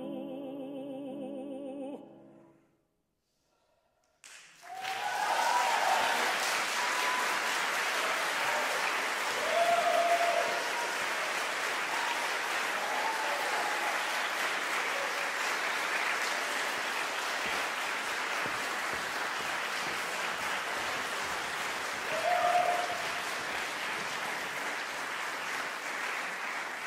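A soprano holds the song's final note with wide vibrato over piano, ending about two seconds in. After a moment of silence, the audience breaks into sustained applause that swells twice.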